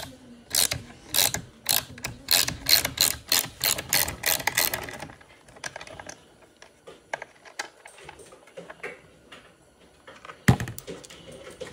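Ratchet wrench with a 6 mm hex bit clicking in quick, regular strokes, speeding up to about four clicks a second, as it loosens the hand guard bolt on a motorcycle handlebar. After about five seconds only a few scattered clicks remain, then a single sharp knock near the end.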